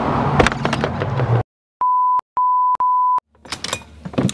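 Street background with traffic rumble and a few clicks, which cuts off abruptly about a second and a half in. Then three short beeps of one steady electronic tone, the last two almost back to back, followed by new background with a few clicks near the end.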